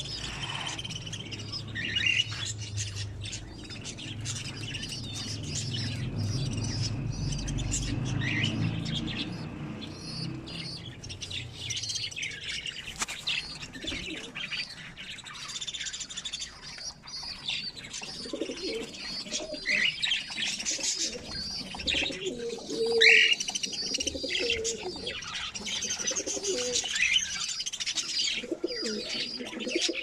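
A flock of budgerigars chattering, with many short, high chirps and warbles. From about eighteen seconds in, lower cooing calls join the chatter.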